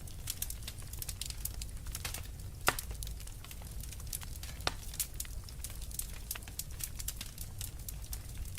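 Wood fire crackling with many small snaps over a low rumble of flame, and two louder pops, one a little under 3 seconds in and one near 5 seconds.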